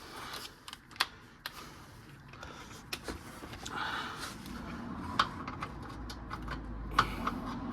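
Sockets and metal hand tools clinking and tapping as a socket is tried on a bolt: scattered sharp clicks, a few with a brief metallic ring.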